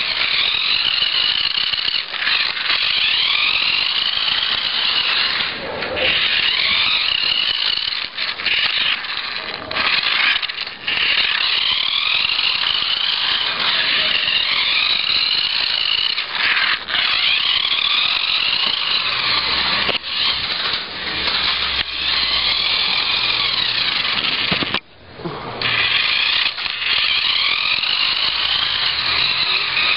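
Small electric motor of a homemade radio-controlled toy car, taken from a toy Bigfoot truck, whining loudly as it is driven; the pitch rises and falls again and again as the car speeds up and slows down, with a brief cut-out near the end.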